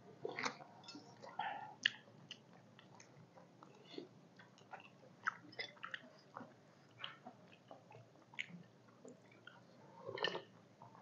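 People chewing and biting pieces of chicken on the bone, close to a clip-on microphone: a stream of small, irregular mouth clicks and smacks.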